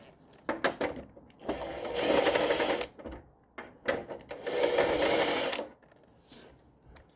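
Cordless drill-driver backing screws out of an exercise bike's plastic shroud: two runs of about a second and a half each, a high motor whine with a fast rattle, with a few sharp clicks of the bit and tool being set on the screws between them.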